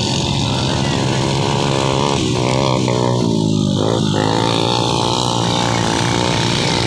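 Motorcycle engine revving hard through loose sand, its pitch rising and falling, with the revs dropping briefly a few times in the middle.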